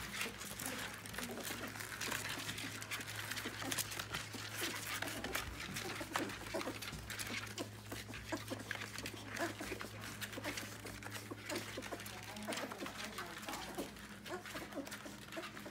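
A litter of young yellow Labrador puppies nursing: a continual run of wet suckling and smacking clicks mixed with small squeaks and grunts.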